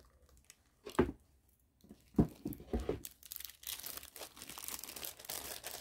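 Three sharp knocks, then a steady crackling, crinkling rustle of plastic being handled while peeled banana pieces are pressed flat for frying.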